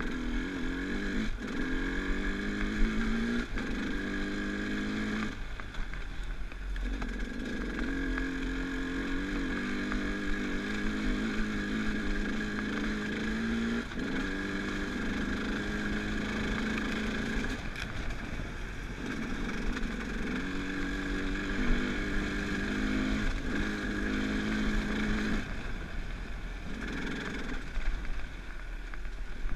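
Enduro dirt bike's engine running under the rider, its pitch climbing and levelling off again and again as the throttle is worked along the trail, and easing off briefly a few times, around five seconds in and again near the end.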